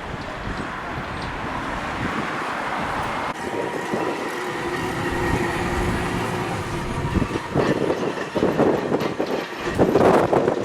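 Electric tram running on its rails, with a steady whine from about three seconds in that stops a few seconds later. Wind buffets the microphone near the end.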